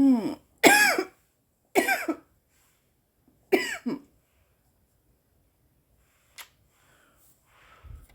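A woman coughing: four harsh, throaty coughs spread over the first four seconds, a smoker's coughing fit from inhaling cannabis smoke. A single sharp click follows about six seconds in.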